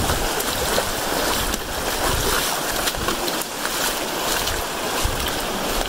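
Shallow river water rushing and splashing as hikers wade through it: a steady rushing noise with irregular low rumbles.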